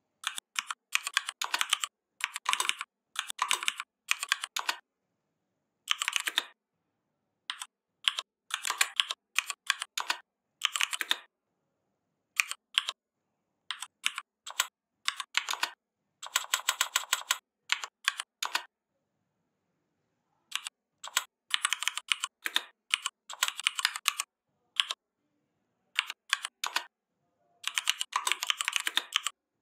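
Typing on a computer keyboard: quick bursts of keystrokes separated by short pauses, with one long, fast, evenly spaced run of key clicks midway.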